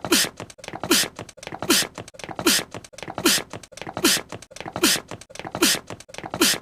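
An anime character's short voiced sneeze, looped back to back about eight times, one every 0.8 seconds or so: each is a quick falling voice sound followed by a breathy, hissy burst.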